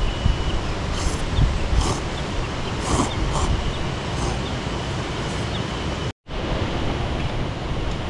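Wind rushing and buffeting on the microphone, a steady noisy wash with a fluttering low rumble, with a few short faint sounds about one to three and a half seconds in. The sound cuts out completely for a moment about six seconds in.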